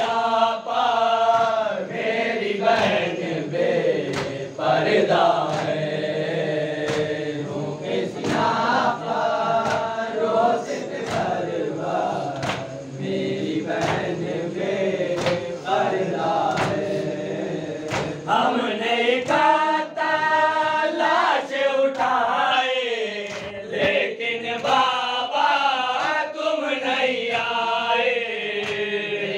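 Shia noha (mourning lament) sung by a male reciter over a microphone, with a group of men chanting with him in chorus. A sharp chest-beating (matam) thud keeps a steady beat about once a second.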